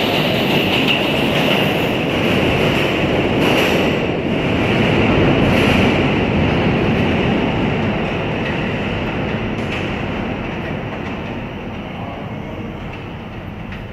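R160B subway train with Siemens propulsion pulling out of the station into the tunnel. Loud running noise of wheels and motors with a few rail clacks holds for the first half, then fades steadily as the train draws away.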